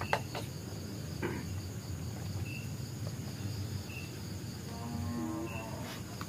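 Crickets chirring steadily in a high, continuous drone. There are a couple of sharp clicks right at the start and a brief low voice about five seconds in.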